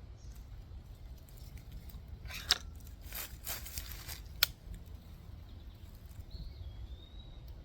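Air rifle being readied between shots, a Hatsan AirTact QE break-barrel: a sharp click, a second or so of metallic scraping, then a sharp clack about two seconds after the first click, as the barrel is cocked, a slug loaded and the barrel shut.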